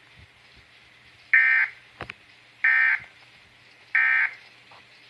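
Three short Emergency Alert System digital data bursts, each a fraction of a second long and about a second apart: the end-of-message tones that close an EAS alert broadcast.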